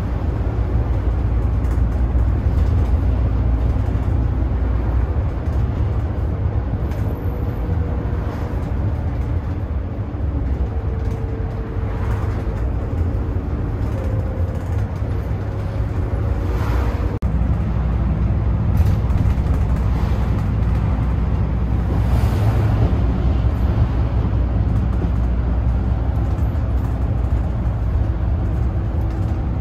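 Inside a moving city bus: steady low engine and road rumble, with the engine note shifting a few times as the bus changes speed.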